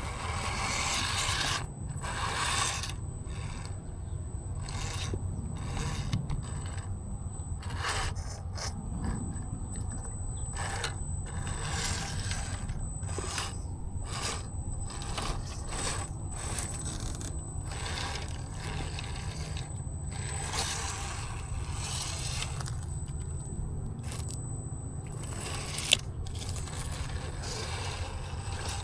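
Axial Capra RC rock crawler driving over wet, rocky ground: tyres and chassis scraping and crunching in frequent short bursts over a steady low hum, with a thin high whine through most of it and one sharp click near the end.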